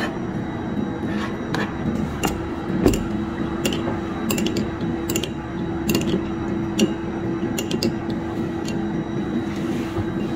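Metal spoon clinking and scraping against a small ceramic bowl and a cutting board while minced garlic and chili are scraped in and stirred into a dipping sauce: a string of irregular light clinks over a steady low hum.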